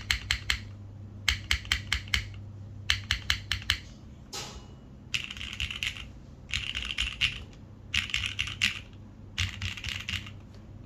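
Neo60 Core mechanical keyboard with lubed Cherry MX Hyperglide Black linear switches in an aluminium plate and GMK keycaps, typed in short bursts of rapid keystrokes with brief pauses between. The bursts in the second half come faster and denser, the strokes running together.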